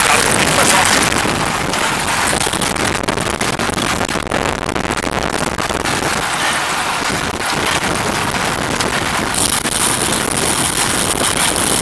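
Steady rushing noise of wind on the microphone while travelling, mixed with vehicle running noise. A harsher high hiss comes in near the end.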